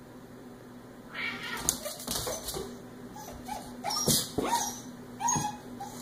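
Husky/beagle puppy giving a string of short yips and whimpers in play, mixed with knocks and scuffles of paws on a hardwood floor, starting about a second in.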